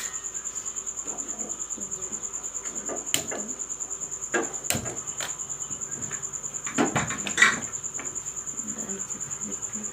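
A cricket chirping in a steady, fast, high-pitched pulsing trill, with scattered knocks and clatters about three seconds in, around the middle, and a louder cluster about seven seconds in.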